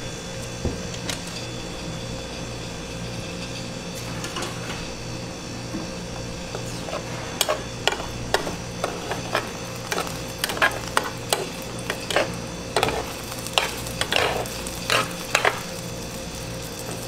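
Plastic spatulas clicking and scraping against a large nonstick pan as a giant rolled omelette is lifted and folded: a run of about fifteen sharp knocks and scrapes from about seven seconds in. Under them a steady low hum and the faint sizzle of egg cooking.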